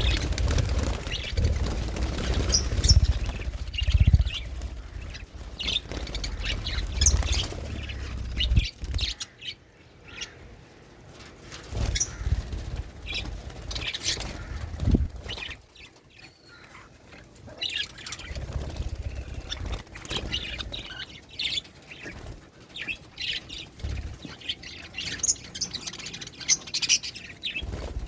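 Budgerigars chirping: many short, high chirps overlapping one another. Low rumbling thumps run through the first third and come again about two-thirds of the way in.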